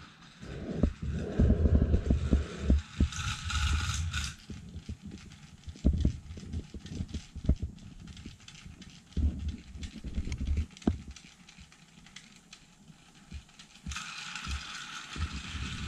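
Irregular clicks, knocks and low thumps of a plastic toy train and its track being handled by hand. A higher whirring noise comes in briefly about three seconds in and again near the end.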